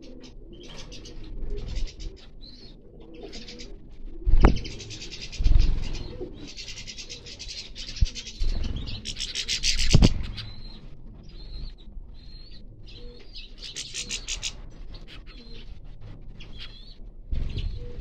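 Small finches, European goldfinches among them, chattering and singing, with fast rattling trills and short chirps. A few short low thumps are heard about four and a half, five and a half and ten seconds in.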